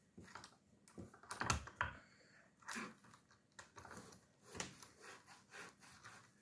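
Scattered light clicks and knocks of a hand-cranked meat grinder's parts being handled and refitted, a few of them a little louder than the rest.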